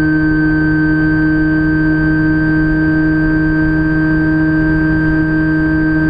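Electric motor and propeller of a Phantom FX-61 flying-wing RC plane running at steady throttle, heard from the onboard camera: a constant buzzing hum with a high whine over it, and a rough low rumble of wind on the microphone.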